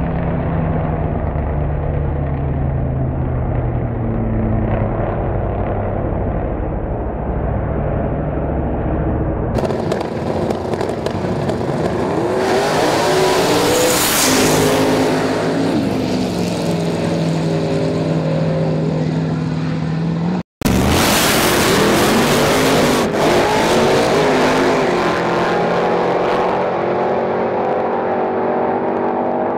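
Drag-racing car engines running at full throttle, their pitch climbing and dropping back again and again through the runs, with a car speeding past partway through. The sound changes abruptly between clips and cuts out for an instant about two-thirds of the way through.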